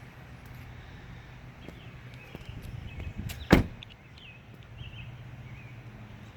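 Steady low hum of a car running, heard from inside the cabin, with one sharp click about halfway through and a few faint high chirps just after it.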